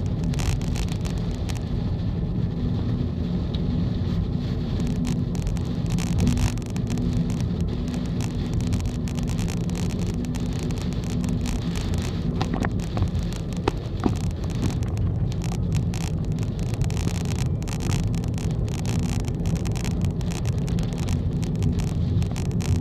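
A car driving at expressway speed in heavy typhoon rain, heard from inside the cabin: a steady drone of engine and tyres on the wet road, with rain and spray crackling irregularly against the car.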